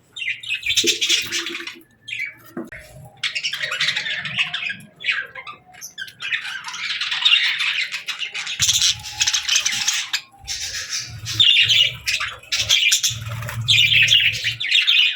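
Budgerigars chirping and chattering in repeated bursts of warbling calls, with a low rumble underneath at times in the second half.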